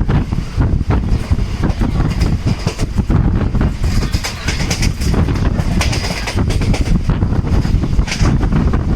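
ICF passenger coach running along the track: a steady low rumble with a quick, irregular clatter of wheels over rail joints, and wind buffeting the microphone.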